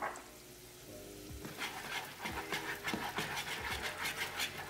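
Spaghetti being stirred and tossed through a raw egg-yolk and cheese mixture in a frying pan: quick, wet squelching strokes several times a second, starting about a second and a half in. The pasta is kept constantly moving so the egg binds into a creamy carbonara sauce instead of scrambling.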